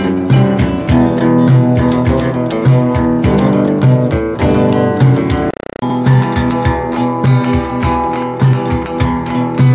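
Improvised guitar music: a classical guitar playing rapid plucked and strummed notes over low bass notes, with an electric guitar alongside. The sound cuts out briefly a little past halfway, then resumes.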